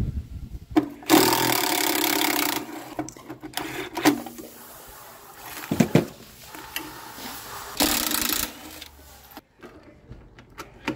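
Handheld cordless power tool on a long socket extension, whirring in short bursts as it turns fasteners out of the generator's sheet-metal housing. One burst of about a second and a half comes about a second in and a shorter one near the end, with a few metal knocks between them.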